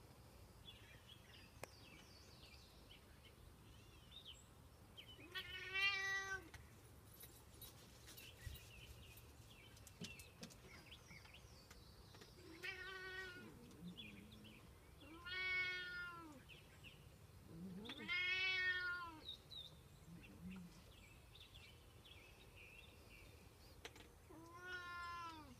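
A domestic cat meowing five times, each a drawn-out meow of about a second that rises and falls in pitch, spaced several seconds apart: a cat begging for food.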